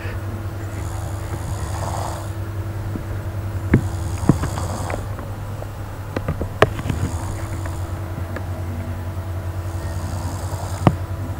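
A sleeping person snoring, one breath about every three seconds, over a steady low hum. A few sharp clicks come around the middle and one near the end.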